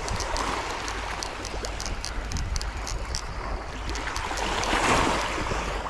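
Small waves washing onto a sandy shore, one wash swelling and falling away about five seconds in, with wind rumbling on the microphone. A rapid run of light ticks sounds over it in the first half and stops about three seconds in.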